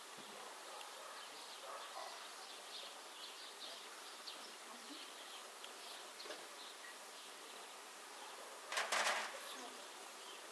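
Honey bees buzzing faintly around their hives, with one short, louder noise about nine seconds in.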